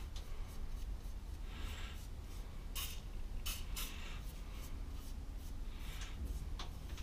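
Small brush scratching and swishing in short, irregular strokes over a plaster of Paris mold, working olive oil into the bait cavities to lubricate the rough plaster and clear out chips. A steady low hum runs underneath.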